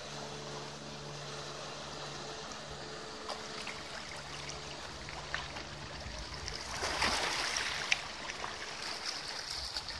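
The motor yacht's engine hums steadily and fades away over the first couple of seconds. Then its wake washes and splashes along the riverbank, loudest about seven to eight seconds in.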